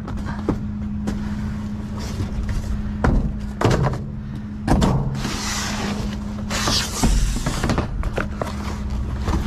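Cardboard boxes dragged and shifted across a dumpster floor with a hooked pole, with a few knocks and scraping rustles about halfway through, over a steady low hum.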